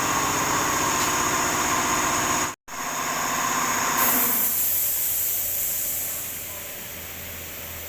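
CNC milling machine running with a steady mechanical hum. There is a brief cut about a third of the way in. About half-way through the machine sound drops away and a high hiss is left, more quietly.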